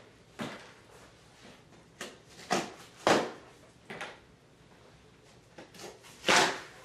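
Metal staples being pried out of a cardboard shipping box with pliers: a series of short, sharp scraping snaps, the loudest about three seconds in and near the end.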